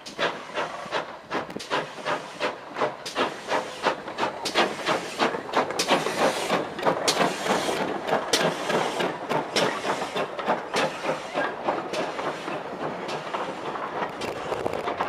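Steam tank locomotive chuffing as it pulls a train away, about three exhaust beats a second over a steady steam hiss, with the coaches rolling past on the rails.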